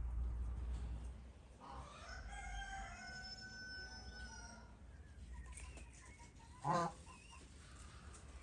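A rooster crowing once, one long call of about three seconds. A brief, louder sound follows a couple of seconds later.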